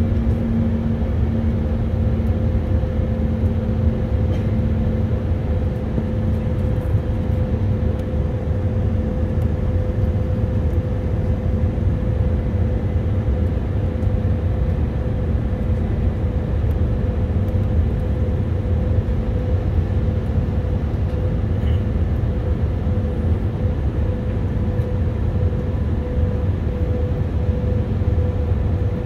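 Airbus A319-132 cabin noise from a window seat over the wing: its IAE V2500 turbofan engines and the slipstream running steadily during the climb, a constant low rumble with a steady hum laid over it.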